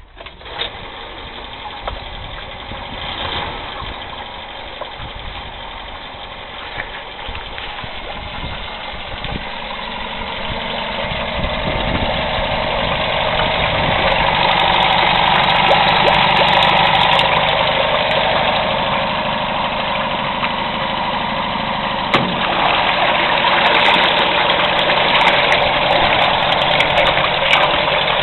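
1976 Honda 75 7.5 hp four-stroke outboard catching and running in a test barrel, its propeller churning the water. It gets louder over the first dozen seconds or so, then runs on steadily and smoothly, the sound of a motor in good running order.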